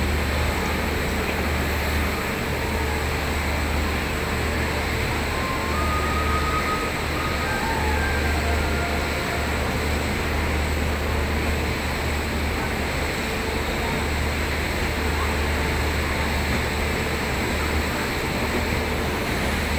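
Indian Railways Rajdhani Express passenger train moving along the platform as it departs: a steady rumble of the train rolling past.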